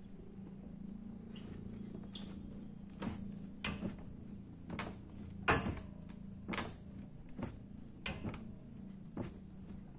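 Homemade steel-frame Skinner gravity machine knocking and clanking at irregular intervals, about once a second from about three seconds in, as its top lever is worked by hand to get the weighted arms spinning. This is the machine being hand-started, which it resists.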